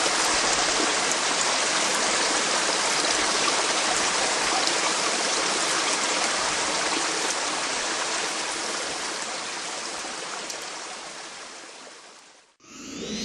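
Running water from a stream or small waterfall, a steady rushing hiss that fades out over the last few seconds.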